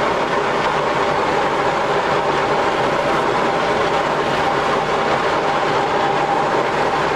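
Tandem road roller's engine running steadily, a constant mechanical drone with a faint whine.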